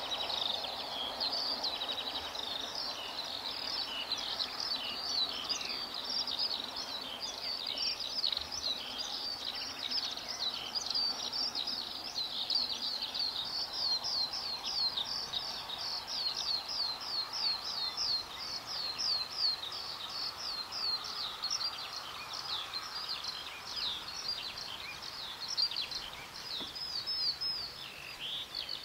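Birds chirping in a dense, continuous chorus of quick high notes, over a faint background rumble.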